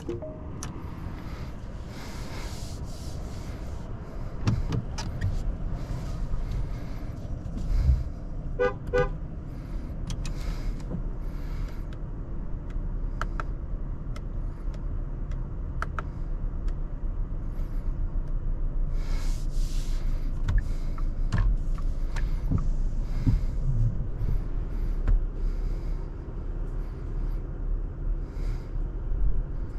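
Interior sound of a Porsche Macan 4 Electric being driven: a steady low road and tyre rumble with occasional small clicks and knocks. About nine seconds in, a short run of quick electronic chime beeps sounds.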